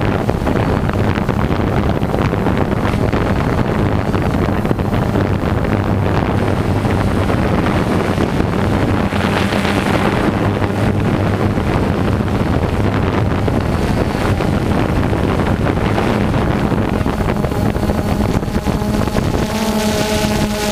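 Quadcopter drone's motors and propellers buzzing steadily, picked up by its onboard camera, with wind rushing over the microphone.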